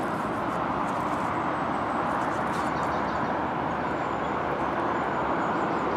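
Steady outdoor rushing background noise with no distinct events, and a few faint scrapes as a glass bottle is worked loose from the soil.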